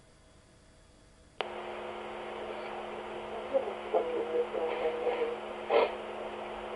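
Baby monitor receiver cutting in with a click about a second and a half in, after near silence, then giving a steady electrical hum and hiss. Faint, indistinct sounds from the room come through over the hum.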